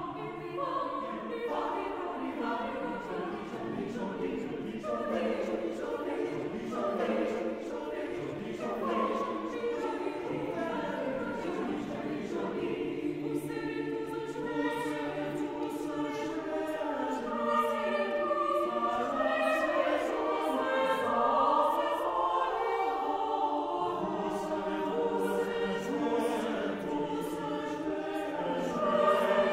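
A choir singing in several parts, holding long sustained chords that grow gradually louder toward the end.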